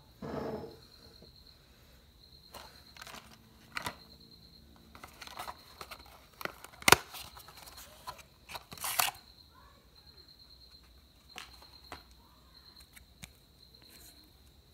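Handling noise from the metal parts of a PA compression driver unit being worked on a wooden table: scattered clicks and knocks with some paper rustling, the sharpest click about seven seconds in. A faint steady high whine runs underneath.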